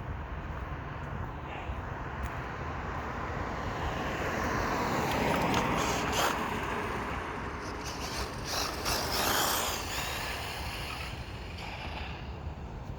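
Radio-controlled short course truck driving, growing louder as it passes close between about four and ten seconds in, with a few sharp peaks.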